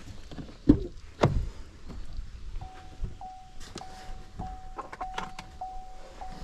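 Two heavy thumps about half a second apart, then scattered knocks and clicks, with a steady, high electronic tone starting about two and a half seconds in that pulses about every half second.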